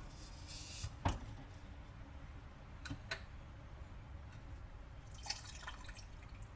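Faint clicks and drips, the sharpest about a second in, then a glass pot lid lifted off a pot of mash near the end, with condensation from the lid dripping back into the liquid.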